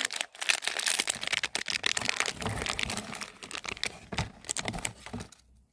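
Crinkling and crackling of blind-box toy packaging being handled and torn open: a dense run of small crackles that thins out and stops about five seconds in.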